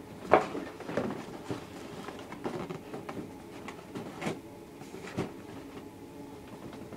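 Cardboard model-kit box being handled on a table: a string of knocks and rustles, the sharpest about a third of a second in, then smaller ones every second or so.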